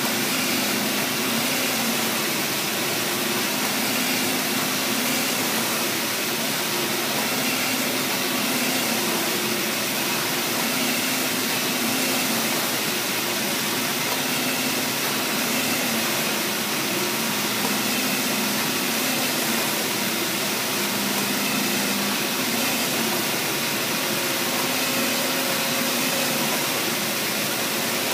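swissQprint flatbed UV printer running: a steady machine noise with a low hum that strengthens and fades at times.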